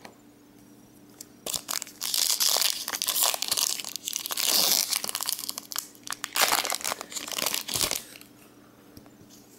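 Pokémon booster pack's foil wrapper being torn open and crinkled by hand. The crinkling starts about a second and a half in, is loudest over the next few seconds, and stops about eight seconds in.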